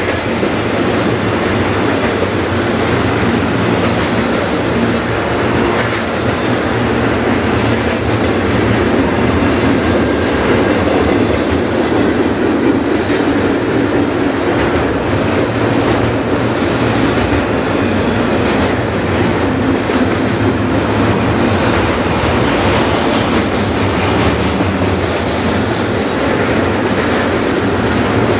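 Double-stack intermodal container cars rolling past at close range: steel wheels running on the rails with a loud, steady rumble.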